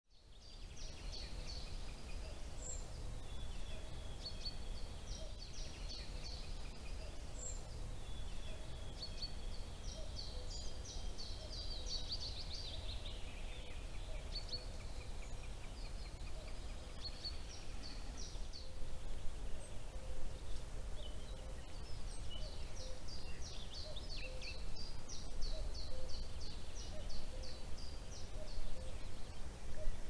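Several songbirds singing in spring woodland, with quick high repeated phrases overlapping one another over a steady low rumble.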